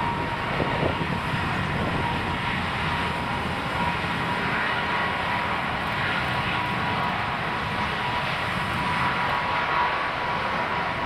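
Rolls-Royce Trent XWB turbofan engines of an Airbus A350 XWB running at low power while it taxis: a steady rumble with a thin, constant whine on top.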